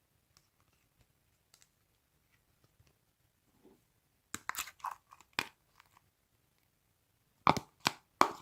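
Thick, chewy slime being squished and pressed, giving sharp crackling pops in two clusters: one about four seconds in and a louder one near the end, with faint clicks before.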